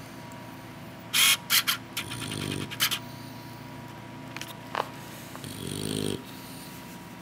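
Sleeping English bulldog snoring, with two low snoring breaths about two seconds in and again near six seconds. A few short, sharp, scratchy noises come just after a second in, and once more near three seconds.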